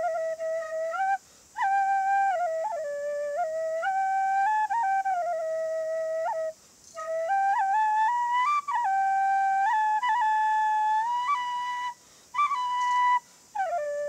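Khlui, a Thai bamboo duct flute, played solo: a slow melody of held notes stepping up and down, with quick ornamental flicks between them, broken by about four short breath pauses.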